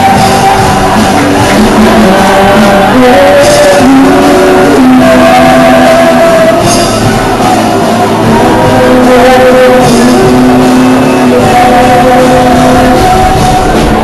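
Loud live worship band music with singing: long held notes shifting pitch every second or two, and a bright crash about every three seconds.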